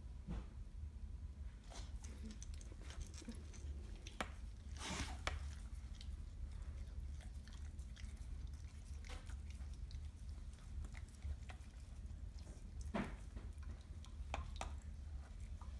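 A dog gnawing at a raw marrow bone: irregular clicks and scrapes of teeth on bone, a few of them louder, over a steady low hum.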